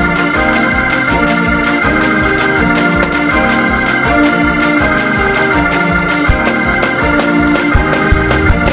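Gospel praise-break music: organ chords repeating in a quick, steady pattern over a fast, driving beat.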